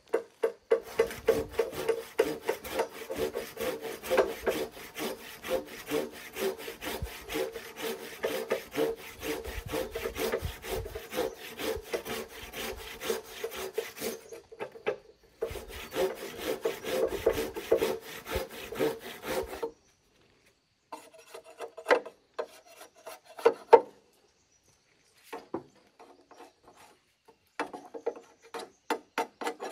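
Wood being rasped by a hand tool: a long run of rapid scraping strokes with one brief pause, then shorter separate bursts of strokes in the last third.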